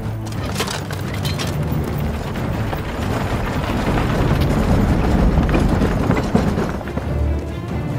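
Heavy wooden horse-drawn wagon rolling in, its wheels rumbling and rattling with a clatter of hooves, growing louder through the middle, with a sharp knock about six seconds in.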